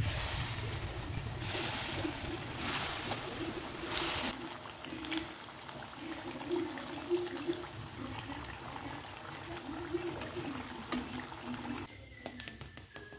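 Corn fritters (bakwan jagung) sizzling as they deep-fry in hot oil, a steady hiss that swells a few times in the first four seconds as batter goes into the pan. The sizzle fades near the end as the fritters are lifted out.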